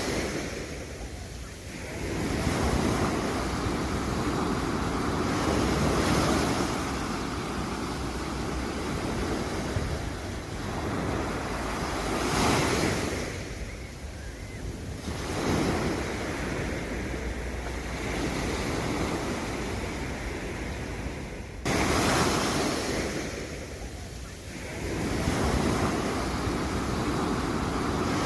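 Sea waves breaking and washing up on a sandy beach, the surf swelling and falling away every few seconds, with wind on the microphone. The level jumps suddenly about three-quarters of the way through.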